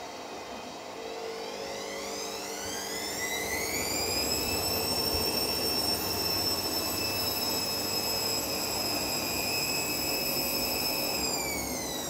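Hoover front-loading washing machine winding its drum up to spin: a motor whine that rises in pitch over the first few seconds, holds steady, then falls in pitch near the end as the drum slows.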